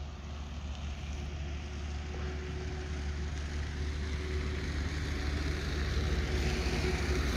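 A motor vehicle's engine running, a steady low rumble with a faint steady tone that slowly grows louder.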